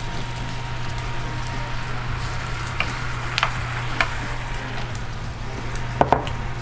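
Butter and brown-sugar caramel sauce sizzling in a stainless skillet as banana pieces are tipped in and stirred with a wooden spoon, with a few light knocks of the spoon and fruit against the pan. A steady low hum runs underneath.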